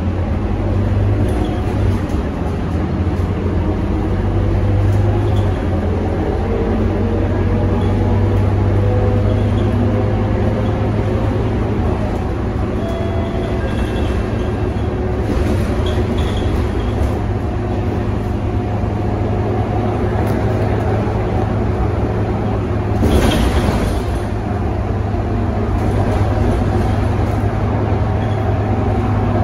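Scania K230UB city bus running along the road, heard from inside the cabin: a steady low engine hum with road noise, its pitch rising for a few seconds in the first third as the bus picks up speed. A brief burst of noise cuts through about three-quarters of the way in.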